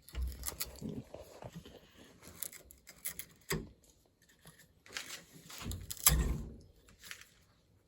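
Hand tool carving and chipping a pine block: irregular scrapes and small cracks of wood splitting off, with a couple of louder snaps. It sounds so good, sort of like ASMR.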